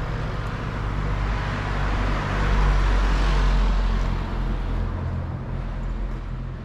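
Street traffic: a motor vehicle passes close by with a low engine hum and tyre noise, getting louder to a peak about two to three seconds in and then fading away.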